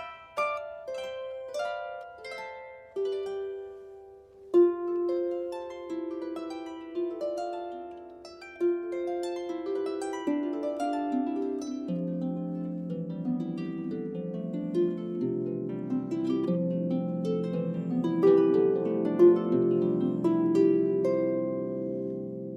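Solo harp playing: single plucked notes and arpeggios, each ringing and fading. After about four seconds the playing grows fuller, with deeper bass notes joining, and it rings out near the end.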